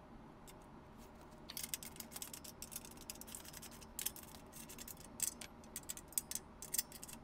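Faint, irregular metallic clicks and ticks of bolts being worked by hand into a steel power-tower frame, starting about a second and a half in.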